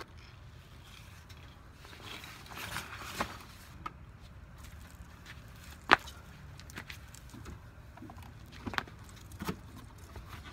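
Scattered light knocks and clicks over a low steady background, with one sharp, loud click about six seconds in.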